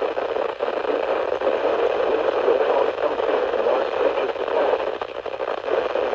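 Steady radio static from a weather radio receiver: an even hiss, strongest in the midrange, with no clear voice coming through.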